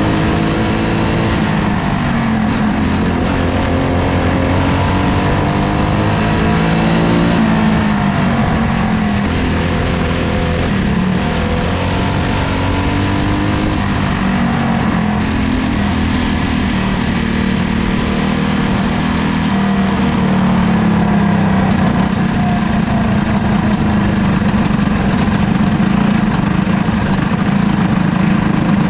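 Dirt-track race car's engine heard from inside the cockpit at racing speed. The revs fall and rise in long sweeps several times, then hold steadier over the last third.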